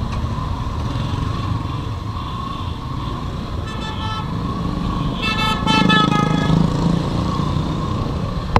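Motorcycle engine running with road rumble while riding slowly through traffic. A vehicle horn sounds briefly about four seconds in, then again for over a second shortly after, louder.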